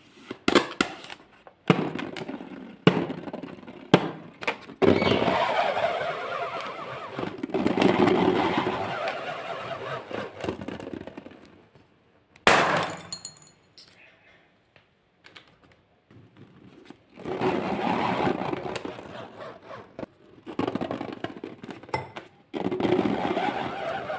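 Handling noises from slime-making with balloons: several sharp snaps in the first five seconds, then long crackly, squishy stretches, a loud snap about twelve seconds in, a near-quiet pause, and more squishing toward the end.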